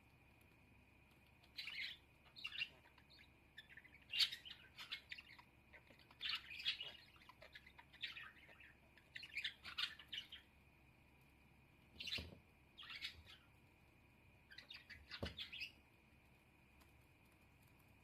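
Pet budgerigar chirping in short bursts of rapid, high twittering, with a couple of soft knocks later on.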